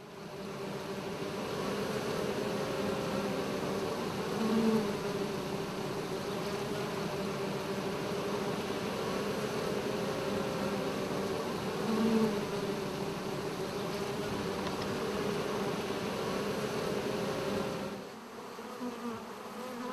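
Swarm of honeybees buzzing in flight, a steady many-toned hum with two brief louder swells about five and twelve seconds in. Near the end the hum drops to a quieter level.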